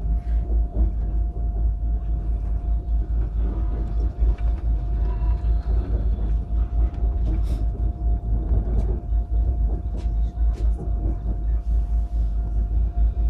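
ICE high-speed train running at speed, heard from inside the passenger car: a steady low rumble with a thin, steady hum above it.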